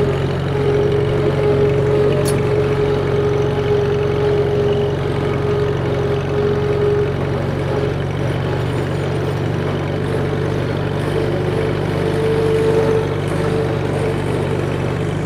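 Small vintage tractor's engine running steadily as the tractor drives across a grass paddock, with a higher steady whine over the engine note for several seconds early on and again near the end.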